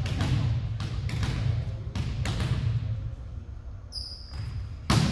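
A ball thudding on a hard gym floor about twice a second, echoing in the hall, then one louder sharp smack near the end. A brief high squeak comes about four seconds in.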